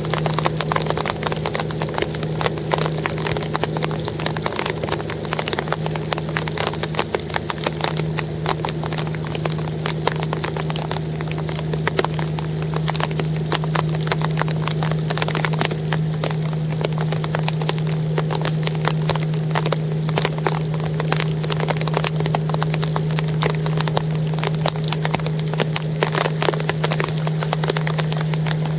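Rain falling on a wooden boat: dense, irregular ticks of drops, over a steady low hum.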